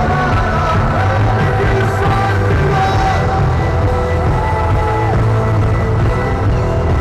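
Live band playing loud rock-style Christian worship music, with a singer holding long notes about a second in and again around four seconds in; the sound comes through the PA of a large open-air venue, recorded from within the crowd.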